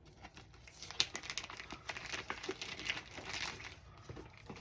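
Paper and card packaging rustling and crinkling in irregular bursts as sketch cards are handled and pulled out.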